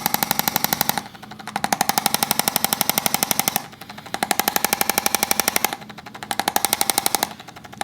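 Handheld percussion instrument rapidly tapping on the patient's body during a chiropractic treatment, in four bursts of one to two seconds with short pauses between them.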